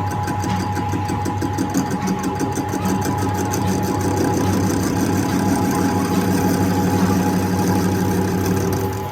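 A workshop machine running steadily: a motor hum with a fast, even mechanical chatter.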